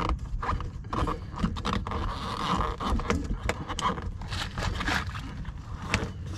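Hands scraping and rubbing against a plastic inner fender liner and the tyre, with many small clicks and taps.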